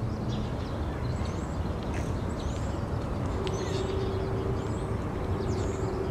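Outdoor ambience with a steady low rumble and many small birds chirping in short high calls. A steady low tone like a hum comes in about halfway.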